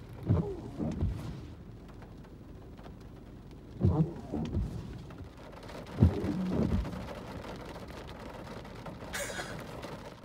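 Windshield wipers sweeping across rain-wet glass in three out-and-back passes, about three seconds apart, each pass making two rubbing strokes. A steady hiss of rain on the car runs between the passes.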